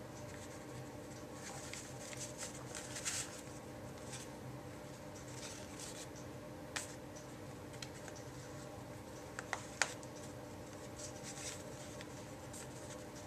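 Bakers twine being tied into a bow around a cardstock belly band: soft rustling and scraping of twine and paper under the fingers, with a couple of sharp little clicks past the middle.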